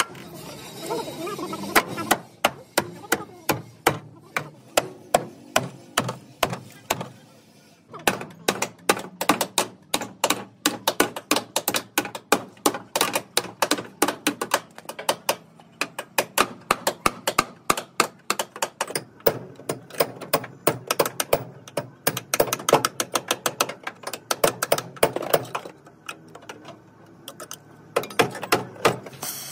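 Hammer blows on car bodywork, struck steadily a few times a second, with a short pause about eight seconds in.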